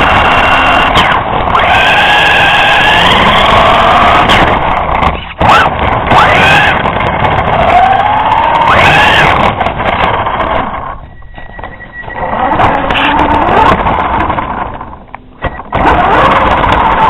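Mad Fighter RC car's small engine, heard from a camera on board, revving up and down as the car drives, with rough rolling noise from the road underneath. The engine note falls away twice, about eleven seconds in and again near fifteen seconds, as the throttle comes off, then picks up again.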